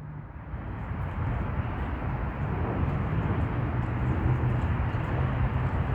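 Steady vehicle engine noise with a low hum, slowly growing louder.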